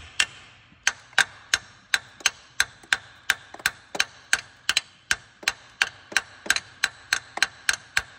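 Hammer tapping the alternator's mounting studs in their bracket, a steady run of sharp metal-on-metal taps, about three a second, each with a short metallic ring, starting just under a second in.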